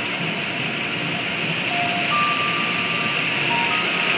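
Automatic car wash tunnel heard from inside the car: a steady hiss of water spraying over the windshield and body, with the wash machinery running, growing a little louder about halfway through. A few faint held tones at different pitches sound over it.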